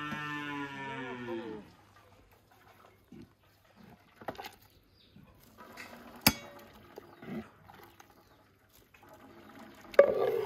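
A cow mooing: one long call that falls in pitch and ends about a second and a half in. Later there is a sharp clink about six seconds in and a louder clatter near the end, as an enamel ladle knocks against aluminium cooking pots.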